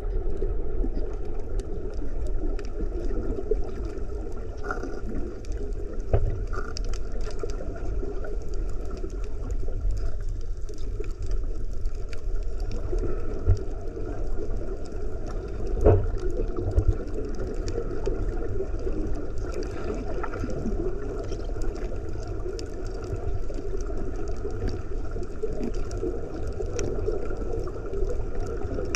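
Underwater ambience heard with the microphone submerged: a steady low rush of moving water, with many faint scattered clicks and a few louder knocks, the strongest a little past the middle.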